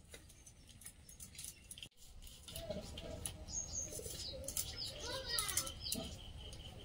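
A large purple yam being sliced against a boti blade, a crisp cutting and scraping that starts about two seconds in, with small birds chirping in the background.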